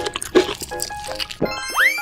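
Cartoon crunching and munching sound effects of hard candy being chewed, a few quick bites over background music. Near the end, a whistle-like tone sweeps sharply up and then slides slowly down.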